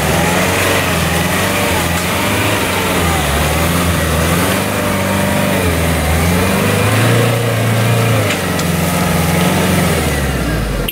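Off-road SUV engine running under load, its revs rising and falling repeatedly.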